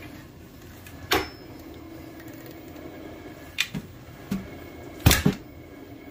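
Hatfield SGL single-shot .410 shotgun's break action being shut: a few light clicks of handling, then a sharp double click as the barrel snaps closed about five seconds in.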